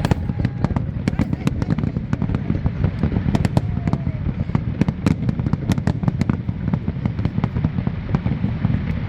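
Fireworks display: a dense, continuous run of shell bursts with many sharp cracks over it.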